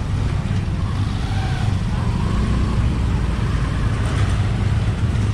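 Yamaha Mio Gravis scooter engine running at walking pace in slow street traffic: a steady low rumble with no sharp events, picked up by a helmet-mounted camera.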